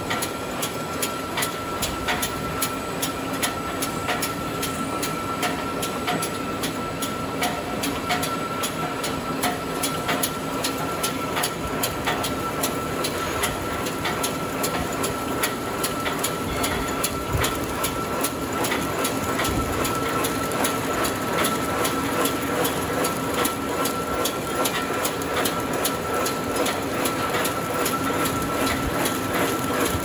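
Round dishwasher-tablet pressing and pillow-bag packing line running: a steady machine hum with fast, evenly repeating clicks and a thin steady high tone.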